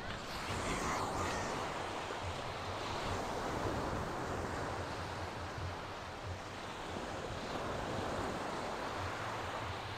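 Surf washing onto a sandy beach, a steady rush that swells and eases a little, with some wind rumble on the microphone.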